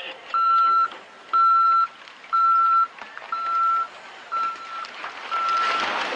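Electronic warning beeper sounding a steady high tone in regular beeps, about half a second long and one each second. A rushing noise swells up behind it near the end.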